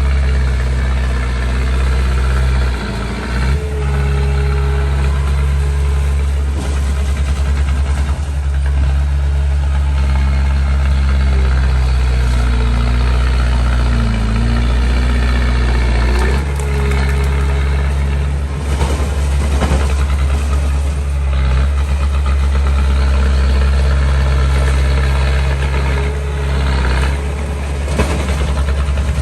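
Small bulldozer's diesel engine running steadily, with brief changes in the engine note about three seconds in, near the middle and near the end.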